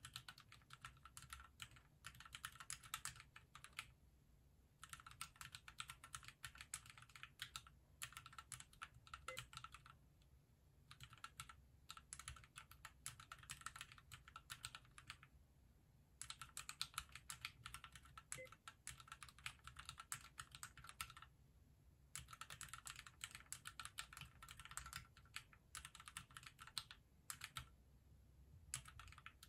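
Typing on a Keychron Q1 aluminium-cased mechanical keyboard: fast runs of keystrokes, each run lasting a few seconds, broken by short pauses about every five to six seconds as one sentence is finished and the next begins.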